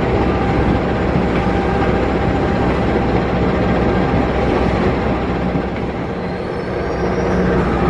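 Passenger train running at about 115 km/h, heard from on board: a steady rumble of wheels on the rails with a low, even hum underneath.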